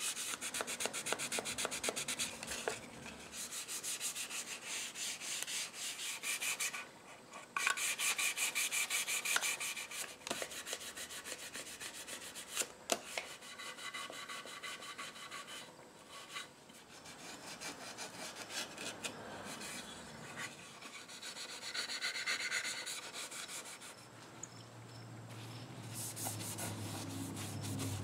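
Hand-sanding a nitrocellulose lacquer finish on a wooden clock case with 500-grit sandpaper and a gray abrasive pad: quick back-and-forth scrubbing strokes in runs, with short pauses. It is a scuff-sanding of the sprayed coats before touch-up work.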